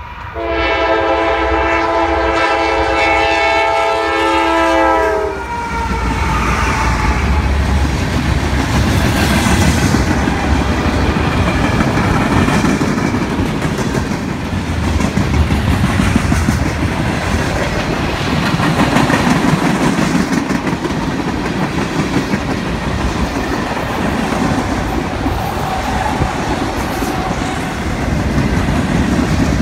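A freight locomotive's horn sounds one long blast of about five seconds. Then the train passes close by with a heavy, continuous rumble and clatter of freight-car wheels on the rails.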